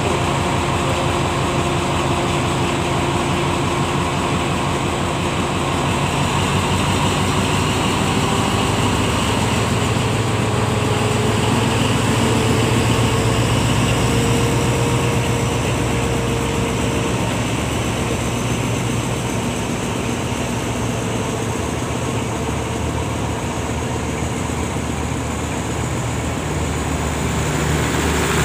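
Diesel-electric locomotive hauling a passenger train, running close by with a steady, loud engine drone and throb. High whining tones rise slowly in pitch, and it is loudest around the middle.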